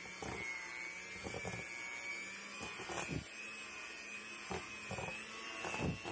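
Electric hand mixer running steadily, its beaters working flour into stiff cookie dough in a stainless steel bowl, with irregular knocks and clicks as the beaters hit the bowl.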